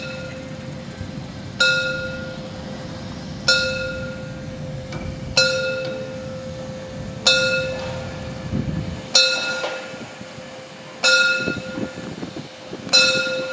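Steam locomotive bell on the narrow-gauge Molli engine 99 2322-8, struck about once every two seconds, each strike ringing out and fading before the next. This is the warning bell the locomotive rings continuously while running through town streets. It rings over a low rumble that drops away about two-thirds of the way through.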